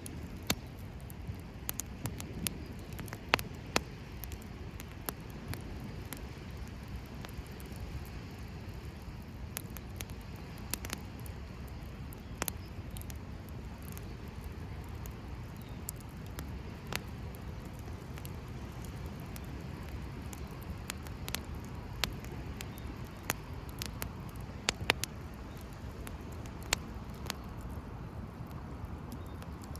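Wood campfire crackling, with irregular sharp pops and snaps over a steady low rush.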